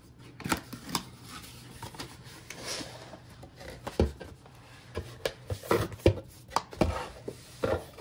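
A cardboard product box being handled and opened: it is slid out of its paper sleeve and its lid is lifted, with scattered knocks and taps of the box against a wooden table and rustling of cardboard and paper. The sharpest knocks come about halfway through and again a couple of seconds later.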